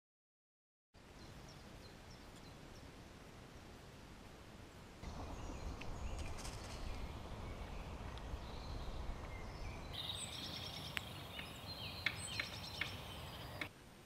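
Woodland ambience: a steady background hiss with small wild birds calling and singing, busier in the second half. Several sharp clicks come near the end.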